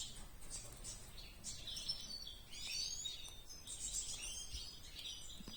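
Small songbirds chirping and twittering faintly, a continual run of short high calls and quick rising and falling notes.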